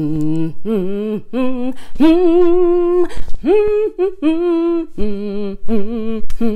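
A woman humming a melody in short phrases, holding one long steady note about two seconds in.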